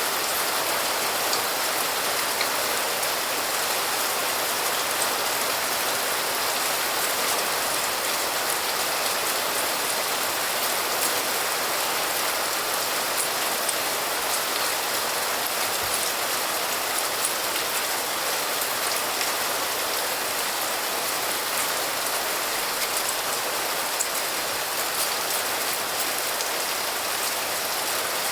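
Steady, heavy rain falling, a dense even hiss with scattered sharper drop ticks.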